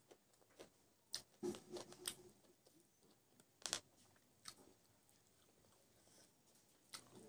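A person eating close to the microphone: faint wet chewing with scattered sharp lip-smacking clicks.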